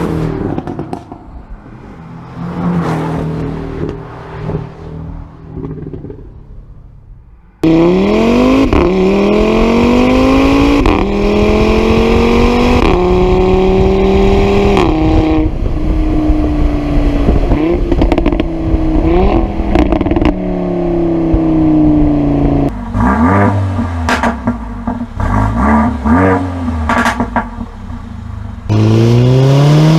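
Sports-car exhausts from several clips. One engine revs with scattered pops, then a much louder car accelerates hard, its pitch climbing and dropping at each upshift. Near the end come bursts of sharp crackles and pops on the overrun, then another rising rev.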